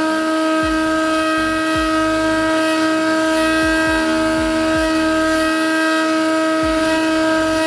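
CNC spindle motor of an EcubMaker TOYDIY2 4-in-1 machine running a fine engraving bit through plywood: a loud, steady whine with overtones, broken by brief low downward sweeps every second or so.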